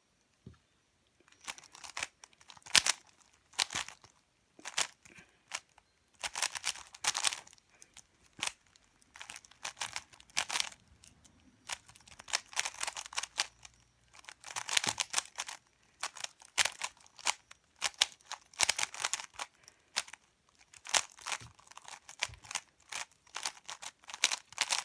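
A 3x3 Rubik's cube being turned by hand: plastic layers clicking and scraping in quick irregular bursts.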